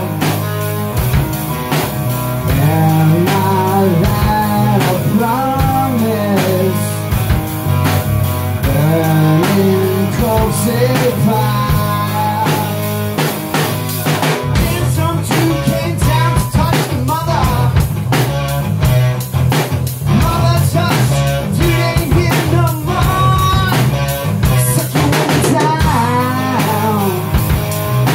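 A live rock band playing: a man sings lead into a microphone over a drum kit, electric guitar and bass guitar. The drumming gets busier about halfway through.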